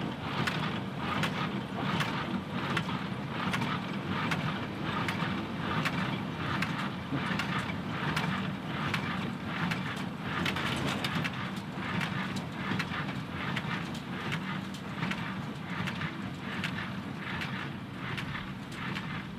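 IH 440 square baler running off the PTO of a John Deere 2038R compact tractor, its plunger knocking in a regular beat over the steady drone of the tractor's diesel engine.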